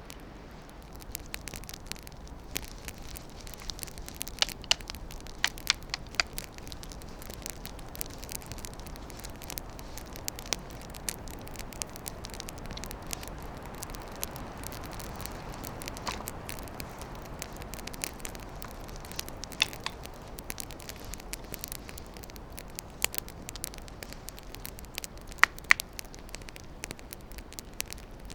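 Steady hiss with irregular sharp crackles and pops scattered through it, a few of them louder, such as from around four to six seconds in and near the end.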